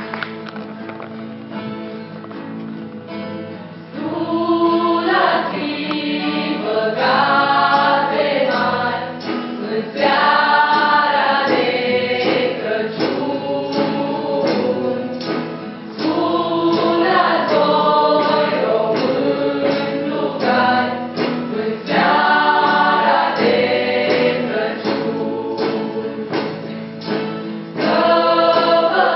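A folk choir sings a Romanian Christmas carol (colindă) to strummed acoustic guitars. The guitars play alone at first, and the voices come in about four seconds in and sing in phrases with short breaks.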